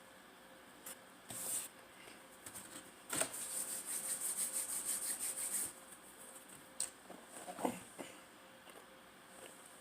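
Close-miked eating and food-handling sounds. A few isolated clicks, and a dense rustling, crinkly stretch that starts about three seconds in and lasts about two and a half seconds.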